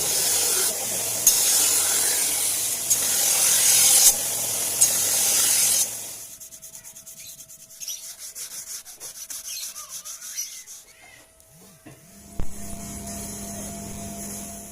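N695 stainless steel knife blade being sanded: a loud, steady abrasive hiss for about six seconds, then quieter, rapid rubbing strokes. Near the end there is a thump, and a low steady hum starts.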